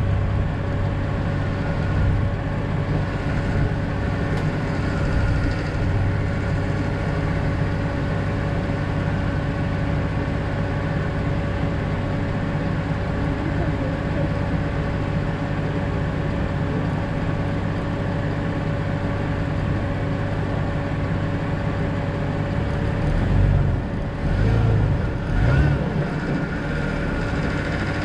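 A 2000 Jeep Cherokee XJ driving: a steady drone of engine and road noise, with a few louder low bumps near the end.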